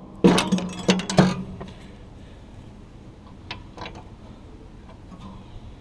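Metal clinking and rattling as a steel pin on a Walker mower's deck mount is worked loose by hand: a quick flurry of clinks in the first second or so, then two light clicks a few seconds later.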